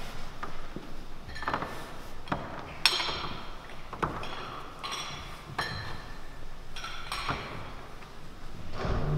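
Irregular clinks and knocks of small hard objects being handled, some ringing briefly like glass or metal. The sharpest comes about three seconds in.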